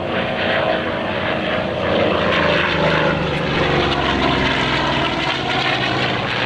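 FG-1D Corsair flying past, the propeller and its 18-cylinder Pratt & Whitney R-2800 radial engine loud, with the engine pitch falling as it goes by.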